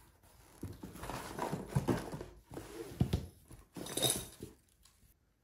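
Handling noise from a cardboard box and a plush cat-tree pad being pulled out of it: irregular rustles and soft knocks, with a sharper crisp rustle about four seconds in.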